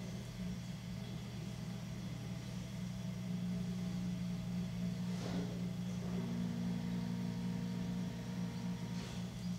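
Electric potter's wheel motor humming steadily while a large clay jar is shaped on it, with a brief soft rush of noise about five seconds in.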